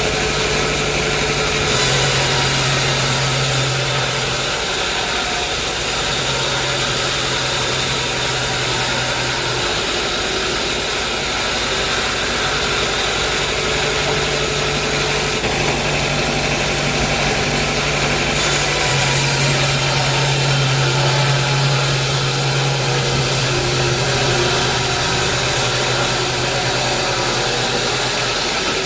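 Sawmill machinery running steadily, with a constant low hum under an even hiss.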